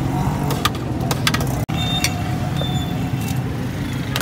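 Steady rumble of road traffic with scattered sharp clinks of a steel spoon and ladle against china plates and steel pans.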